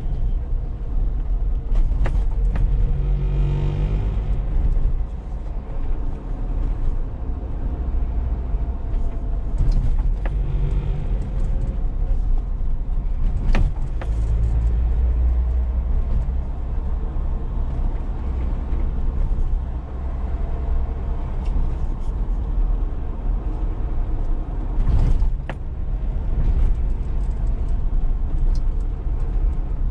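Small 4x4 car being driven: steady low engine and road rumble, with the engine note rising and falling a couple of times and a few sharp knocks.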